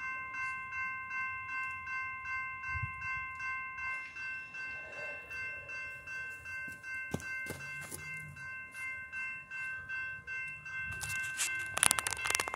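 Railroad crossing warning bell starting suddenly and ringing steadily at about two strikes a second as the crossing is activated and the gate arms come down. Near the end, loud rustling knocks from the camera being handled.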